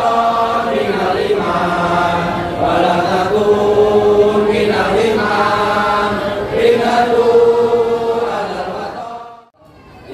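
A group of men singing together in unison, a slow, sustained melody; the singing fades out near the end into a brief gap.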